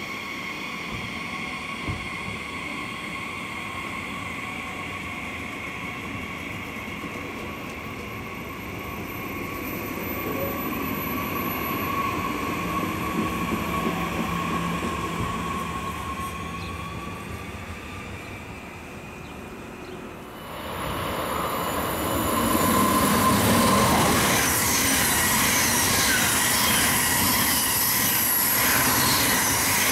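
A double-deck regional express train running slowly along the tracks with a steady high-pitched whine over its rumble. About two-thirds of the way through, a much louder rush of wheel and air noise sets in as an Intercity train passes at speed.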